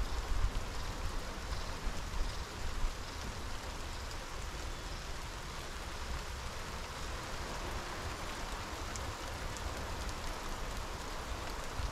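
Light rain falling steadily on grass and trees, an even hiss, with a fluctuating low rumble underneath.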